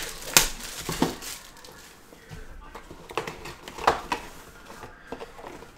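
Plastic shrink wrap crinkling and a cardboard trading-card hobby box being handled and opened: a handful of sharp crackles and taps, loudest in the first second and again about four seconds in.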